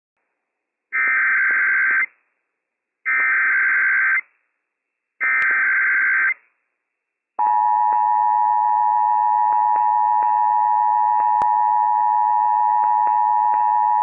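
Emergency Alert System tones on NOAA Weather Radio, encoding a Required Monthly Test. Three one-second bursts of warbling SAME digital header data come first, each repeat of the header a couple of seconds apart. About seven seconds in, a steady two-tone EAS attention signal starts and keeps sounding.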